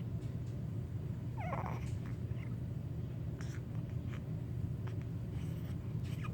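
Baby hiccuping: one short, squeaky hiccup about a second and a half in, over a steady low background hum, with a few faint clicks.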